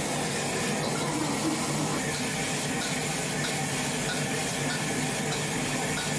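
Steady rushing hiss of a busy restaurant kitchen during cooking.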